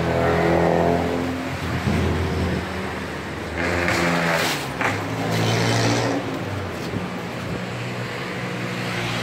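Crisp fried tempeh chips rustling and crackling as a wire frying scoop tips them into a bamboo basket, in two bursts in the middle, over a steady motor-like hum.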